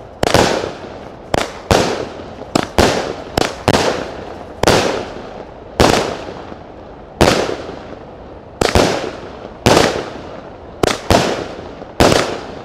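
Fonti Pirotecnica Extreme, a 36-shot 20 mm firework cake, firing shot after shot. Sharp bangs come about one to two a second at uneven spacing, some in quick pairs, and each trails off briefly in an echo.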